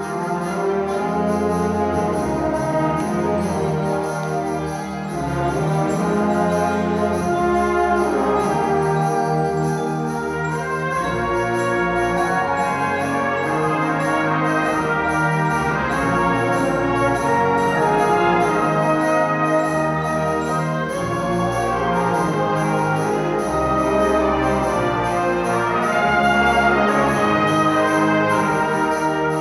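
Concert band of woodwinds, brass and percussion playing live in a concert hall, the full ensemble sounding together in held, changing chords over steady low notes.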